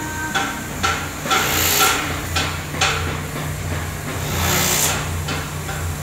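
Heavy truck's diesel engine idling with a steady low hum, cut by several sharp knocks and a short hissing burst about every three seconds.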